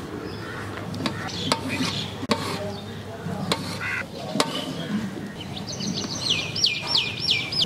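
A knife cutting dragon fruit on a metal plate, with a few sharp clicks as the blade taps the plate. Near the end a bird sings a quick run of repeated looping whistles.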